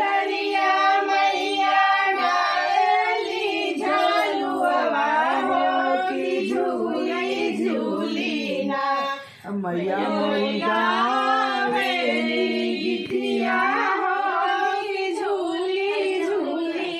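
Women singing together in held, gliding notes, with a brief break about nine seconds in.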